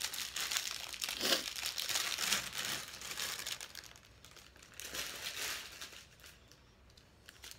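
Plastic packaging crinkling and rustling as a small jewelry package is handled and opened. It is busiest for the first three seconds, with another burst about five seconds in.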